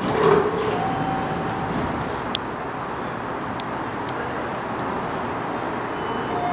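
Baltimore Metro Subway train standing at the platform with its doors open, its equipment giving a steady rumbling hum. A brief louder swell with short held tones comes right at the start, and a few faint ticks follow.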